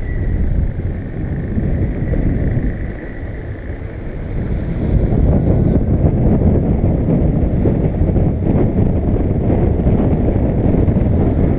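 Wind buffeting the microphone and road rumble from a low-mounted camera on a moving electric unicycle, louder from about five seconds in, with a faint thin whine in the first few seconds.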